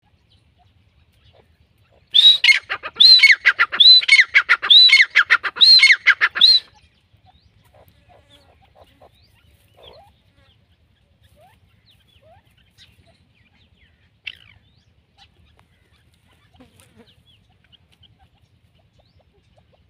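Grey francolin calling: a loud, rapid run of repeated shrill, arching notes starting about two seconds in and lasting about four seconds, then one short sharp note about fourteen seconds in.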